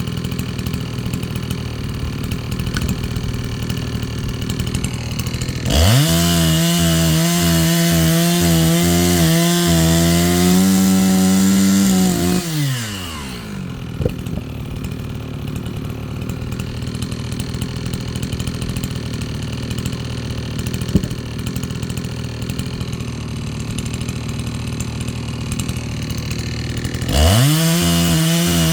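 Chainsaw idling, revved up sharply about six seconds in and cutting wood for about six seconds, then dropping back to idle; it is revved up again near the end.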